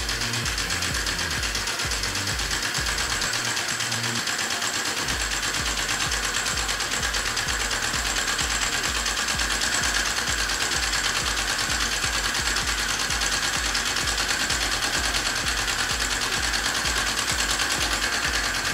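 Small homemade single-cylinder steam engine running fast on steam, making a rapid, even chuffing beat with each stroke of its valve and piston over a steady hiss. The beat falls away for a moment about three seconds in, then picks up again.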